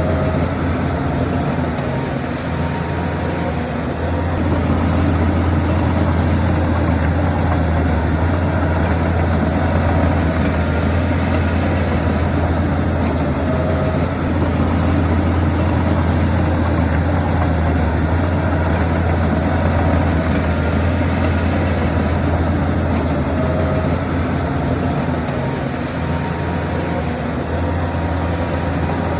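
Shantui bulldozer's heavy diesel engine running steadily with a strong low hum, working a little harder from about four seconds in.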